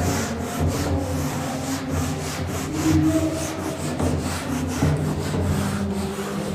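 Handheld whiteboard duster rubbed rapidly back and forth across a whiteboard, wiping off marker writing in quick, repeated scrubbing strokes.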